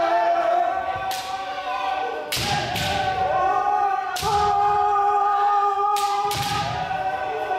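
Several kendoka shouting long, drawn-out kiai that overlap, with about six sharp cracks of bamboo shinai striking armour, each echoing in a large gymnasium.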